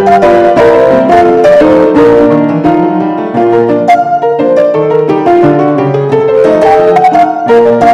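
Instrumental background music led by a piano, playing a busy melody of quick, bright notes.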